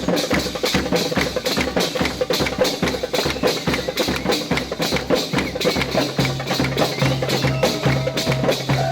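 Loud rhythmic music driven by dense, fast percussion, with a steady bass line coming in about six seconds in.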